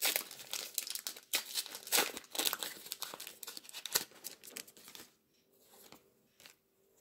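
Foil trading-card pack crinkling as it is torn open by hand, then the cards inside being shuffled. The crackling is dense for about five seconds, then drops to a few light ticks.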